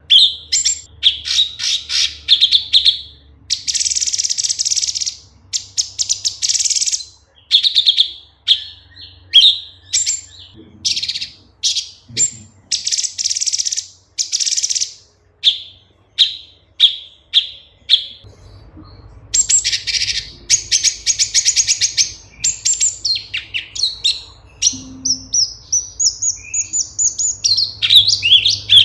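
Orange-bellied leafbird (cucak cungkok) singing a loud, varied song: quick runs of sharp chirps and whistled notes mixed with dense, harsh chattering trills about a second long, with a brief pause about two-thirds of the way through.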